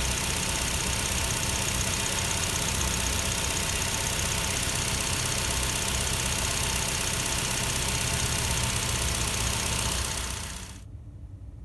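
Steady whirring running noise from a Nissan Almera's engine bay, its air-con condenser fan motor running, the fan-motor noise that marks a failing condenser fan motor. It stops quickly about ten and a half seconds in.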